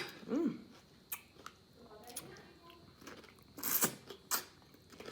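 Close-miked eating sounds: a person chewing, with scattered small mouth clicks and two louder, noisier chews about three and a half and four seconds in. A brief hummed "mm" comes just after the start.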